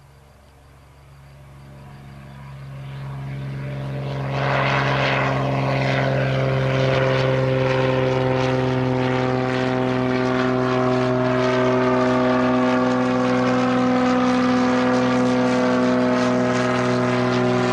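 Propeller airplane flying overhead, its engine drone building up over the first four seconds and then holding loud and steady.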